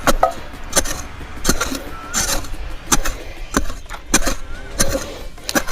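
A hand tool striking ground or wood in a steady rhythm, about three blows every two seconds, each a sharp knock.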